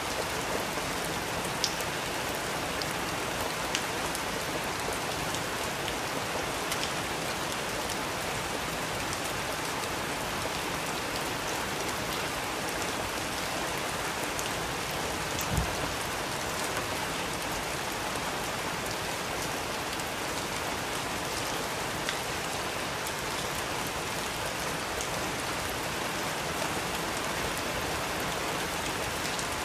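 Steady rain falling, an even hiss with a few sharp drip ticks here and there and one brief low thump about halfway through.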